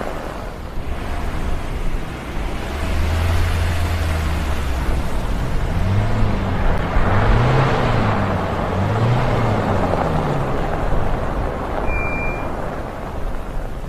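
A car driving, with steady road and wind noise and a low hum that swells and wavers in pitch midway. A short high beep about twelve seconds in.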